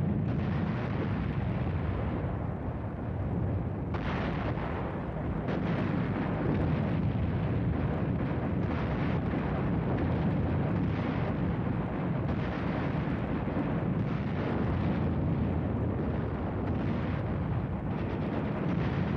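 Sustained artillery barrage: shell fire and explosions blend into a continuous heavy rumble, with sharper reports standing out every second or two.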